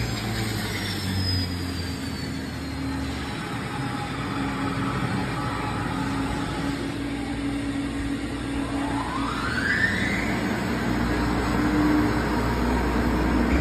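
AMFEC 510 stainless steel paddle blender running with a steady mechanical drone while it discharges a batch of ground meat. A rising whine comes in about nine seconds in.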